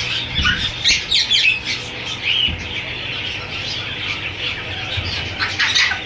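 Rainbow lorikeets giving short, shrill squawks and chirps, bunched in the first second and a half, once in the middle and again near the end, over a steady low hum.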